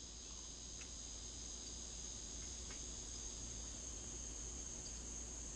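Faint, steady, high-pitched chorus of crickets.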